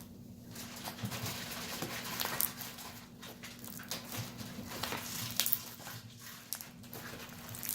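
Crunchy slime being squeezed and pressed by hand for ASMR: a soft continuous crackling with many small sharp pops scattered through it.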